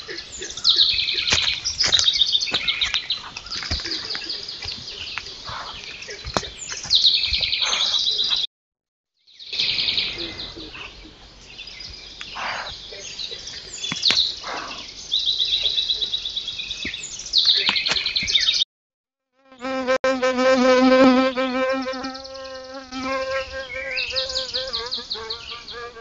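Woodland birds singing with rapid high trills and chirps, broken twice by clip changes. In the last clip, from about two-thirds of the way in, an insect buzzes close to the microphone with a wavering pitch.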